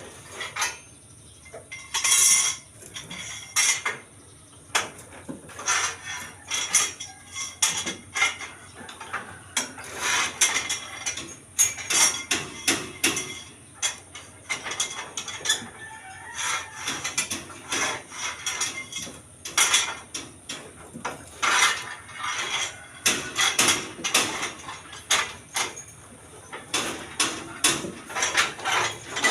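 Steel reinforcing bars clinking and knocking in irregular clusters as they are handled and bent into column stirrups.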